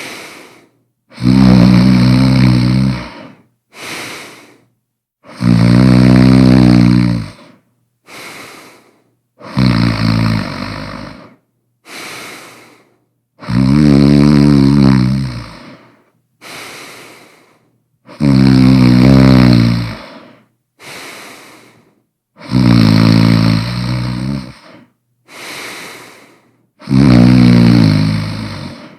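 A person snoring loudly, with long pitched snores about every four seconds, each followed by a short, quieter breath.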